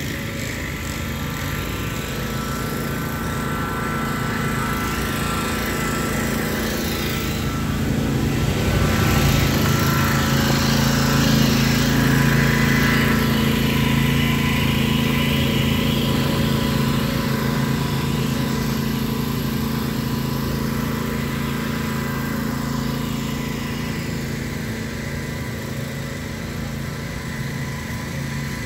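Lawn mower engine running steadily, growing louder about ten seconds in and then fading.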